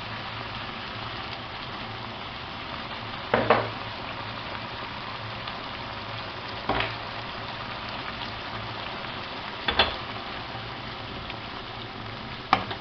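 Chopped onion and pepper frying in a pan, with a steady sizzle. A utensil knocks against the pan four times, about every three seconds.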